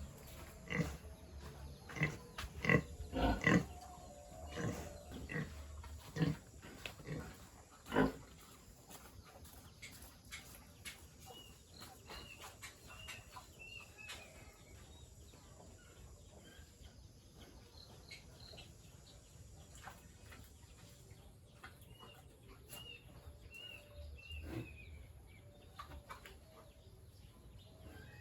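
Pigs grunting, a run of short loud grunts over the first eight seconds, then quieter; rows of short high chirps come and go later.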